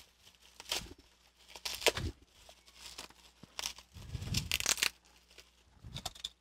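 Shipping packaging being unwrapped by hand: the wrapping tears and crinkles in several short bursts, the longest about four seconds in.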